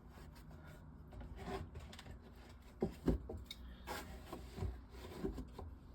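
Cans of pop being handled and slid into rows in a fridge. Light rubbing, with a few short knocks and clinks in the middle and latter part.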